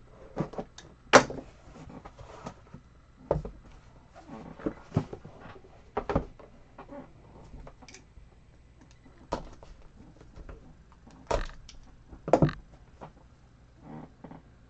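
Handling noise from a 2023 National Treasures Football hobby box and the sealed card case inside it: irregular knocks, taps and scrapes of cardboard and hands as the lid comes off and the case is turned over. The loudest knocks come about a second in and twice more between eleven and twelve and a half seconds.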